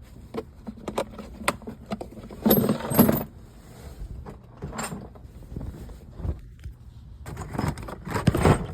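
Metal tools and small parts being handled: a scatter of clinks and rattles, loudest about two and a half to three seconds in and again near the end.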